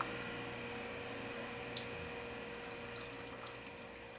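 Water poured from a plastic container in a thin stream into a small water dish, a steady trickle with a few faint drips, easing off near the end.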